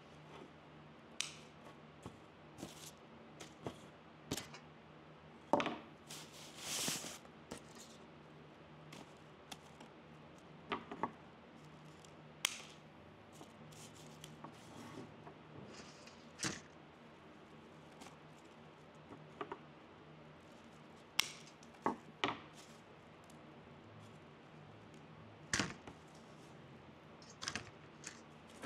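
Scissors cutting evergreen sprigs, with sharp snips at irregular intervals of a second to a few seconds. There is one longer rustling cut about seven seconds in.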